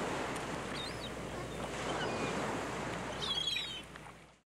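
Water ambience, a steady wash like waves, fading in and out, with a few faint high chirps about a second in and again near the end.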